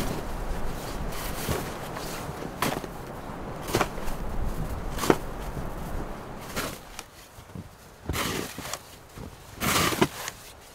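Compact shovel chopping and scraping into wet, packed snow, a short stroke about every second, then two longer scrapes near the end.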